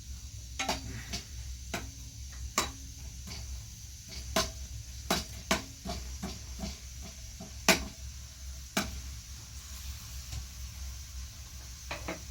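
A series of about a dozen irregular knocks and clinks, some with a brief ring, the loudest about three-quarters of the way through, over a steady low hum.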